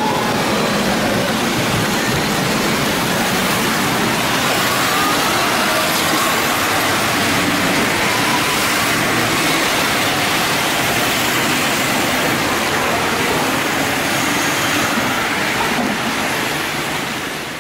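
Steady city road traffic: cars and trucks passing through a wide intersection, a constant rush of tyre and engine noise.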